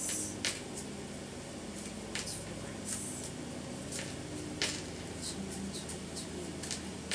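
A deck of tarot cards being shuffled by hand, with a few short, crisp card flicks and slaps, over a lawn mower engine running steadily underneath.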